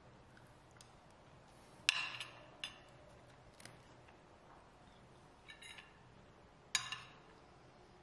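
Tableware clinking while eating: a metal spoon knocking against a ceramic plate and a glass bowl being handled and set down. There are a handful of sharp clinks, the loudest about two seconds in and again near seven seconds in.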